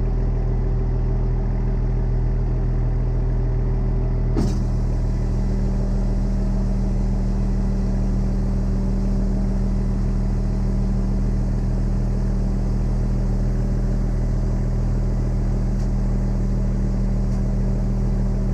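A diesel engine running steadily at idle, one constant note with no revving. A single short click about four and a half seconds in.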